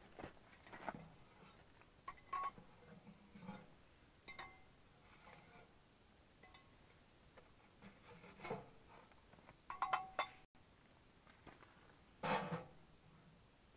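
Knife and fork tapping, scraping and clinking on a plastic cutting board as a steak is cut and eaten, in scattered short clicks, a few with a brief ring.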